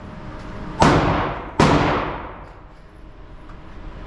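Two single gunshots about a second apart, each sharp crack followed by a long echoing fade.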